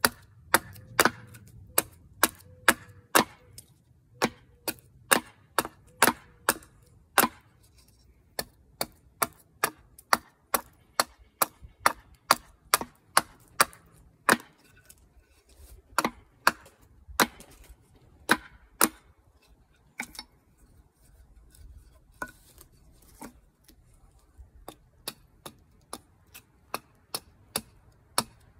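Gransfors Bruk small carving hatchet chopping into wood in quick, irregular strikes, about two sharp knocks a second. The strikes thin out and grow fainter for a few seconds about two-thirds through, then pick up again.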